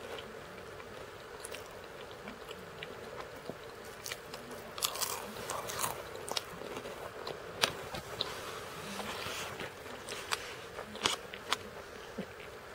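Crackers being bitten and chewed close to the microphone: irregular crisp crunches and crackles, with a few sharper, louder crunches in the second half, over a faint steady hum.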